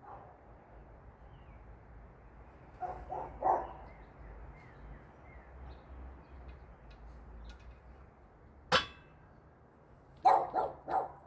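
A dog barking: a few barks about three seconds in, then a quick run of barks near the end. A single sharp clank comes about a second and a half before the last barks.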